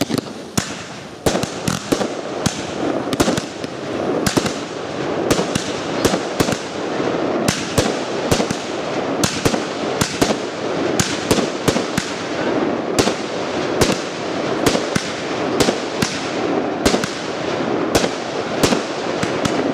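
Professional aerial fireworks display in full flow: a dense, irregular run of sharp bangs from bursting shells, several a second, over a continuous din of launches and bursting effects.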